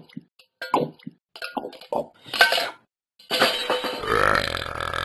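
A dog making a run of about five short throaty vocal sounds, each falling in pitch, then a longer rough, rasping sound near the end.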